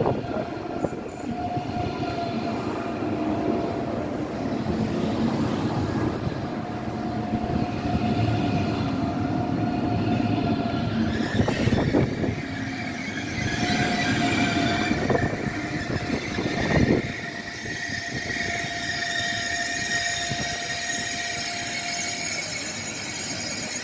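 ICE high-speed electric trains moving along a station platform: a steady rumble of wheels on rails with held squealing tones from the wheels and brakes, higher-pitched in the second half, and a few sharp knocks.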